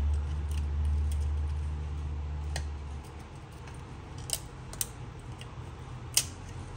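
Small metallic clicks and taps from an iPhone 7 display's metal back plate and small parts being handled, with about five separate clicks, the loudest near the end. A low hum runs under the first three seconds, then drops away.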